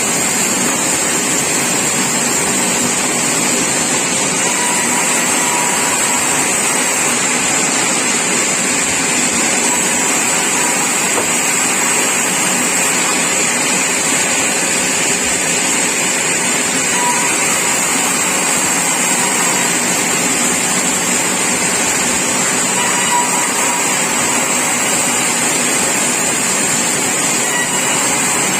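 Sawmill machinery running with a loud, even, unbroken noise and a hiss high in pitch.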